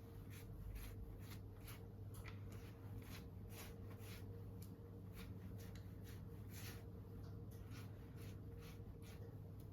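Faint short scratching strokes, two or three a second and uneven, over a steady low hum.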